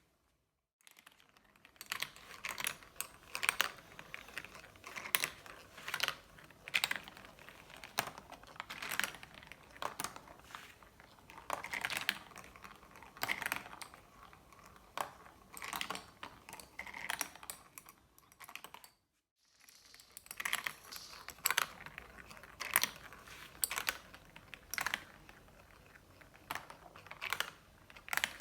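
Marbles rolling and clicking along a marble-run track: many small irregular knocks and clacks in quick succession, broken by a brief drop to silence about two-thirds of the way through.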